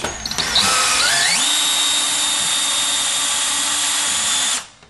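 Cordless drill/driver on its low speed setting driving a long screw through the door brace into a hardwood floor. The motor whine rises in pitch over about the first second and a half, holds steady, then stops suddenly near the end with the screw close to, but not quite, all the way down.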